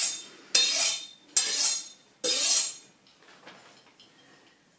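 Kitchen knife being sharpened: three sharp metallic scraping strokes of the blade, about a second apart, the last ending about three seconds in.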